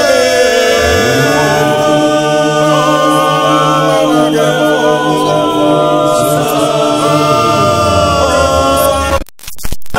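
Mixed choir of men's and women's voices singing a cappella gospel in close harmony. The sound drops out briefly near the end.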